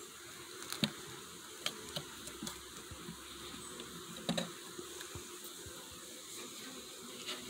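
Wooden lid of a beehive nuc box being handled and lifted off: a few light wooden clicks, with a knock about four seconds in, over a steady hiss.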